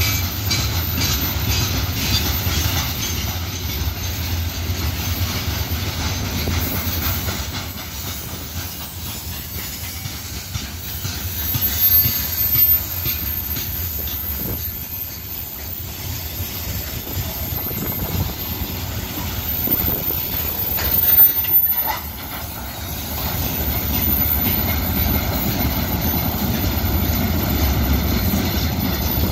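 Empty covered hopper wagons of a freight train rolling past, a steady rumble with the wheels clacking over rail joints. The sound swells louder twice, about 12 and 21 seconds in.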